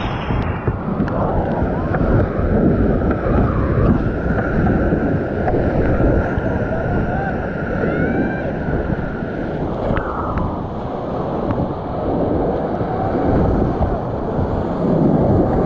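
Loud, steady rush of whitewater churning around a kayak running a rapid, with wind rumbling on the body-mounted camera's microphone.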